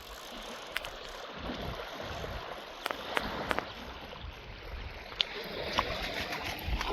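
Steady rush of lakeside water noise with wind buffeting the microphone, broken by a handful of sharp clicks or taps, three of them close together about three seconds in.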